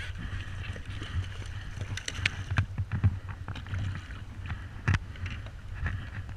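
Hooked pike thrashing at the surface beside a kayak, splashing water in bursts, the sharpest about five seconds in, over a steady low rumble.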